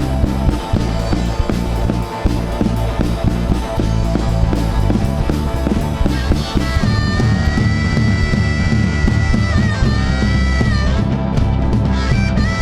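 Rock band playing live, an instrumental passage with no singing. About halfway through, a lead instrument comes in with a long, high held note that bends in pitch over the full band.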